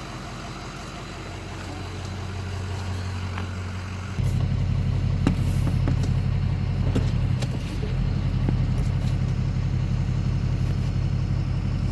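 A vehicle engine running steadily at idle, a low even hum that abruptly gets louder about four seconds in. A few light clicks sound over it.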